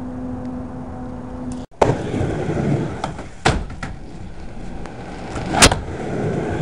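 Skateboard wheels rolling on a wooden mini ramp, with sharp board clacks and thuds about two, three and a half and five and a half seconds in; the last is the loudest. Before that, in the first second and a half, there is a steady low hum.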